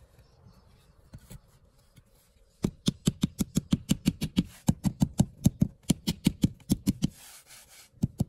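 A fast, even run of sharp knocks, about six a second for some four and a half seconds, followed by a brief scraping hiss and a single knock near the end.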